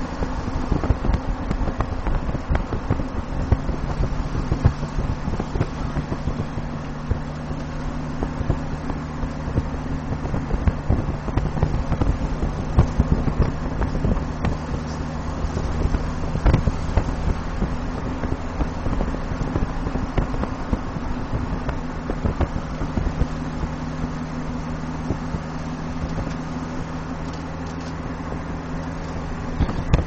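A car in motion: a steady engine hum with rough, irregular low road rumble.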